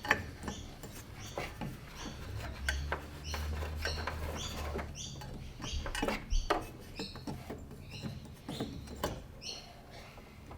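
A small bird chirping over and over, short two-note chirps about twice a second, with faint clicks and knocks mixed in.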